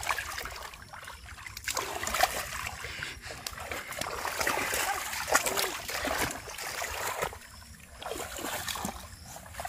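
Hands splashing and churning through shallow muddy floodwater while groping for fish: irregular splashes, with a quieter lull about three quarters of the way through.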